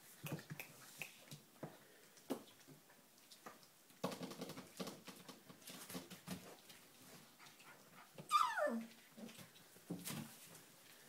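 Golden retriever puppies playing, with scattered small knocks and scuffles, and one high puppy yelp that slides steeply down in pitch about eight seconds in.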